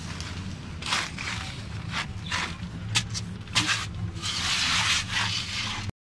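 Irregular scraping and rubbing of soil cat litter being cleaned out of a wooden cat box: several short strokes, then a longer scrape a little after four seconds in. The sound cuts off abruptly just before the end.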